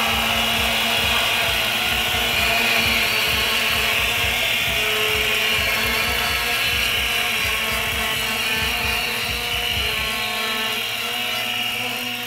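Large protest crowd cheering and applauding, with a regular low beat and a few held tones over it. It dies down near the end.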